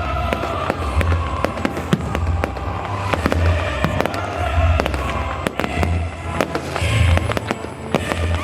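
Fireworks display: many sharp bangs and crackles, with music and a steady low beat playing underneath.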